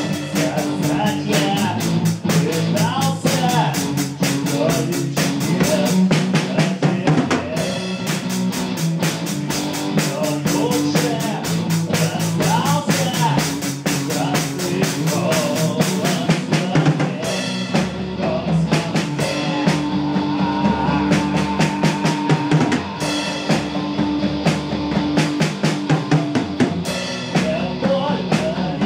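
Live rock band playing an instrumental passage: a drum kit keeping a busy beat of kick, snare and cymbals under an electric guitar played through an amp. A little past halfway, the guitar moves to a lower riff.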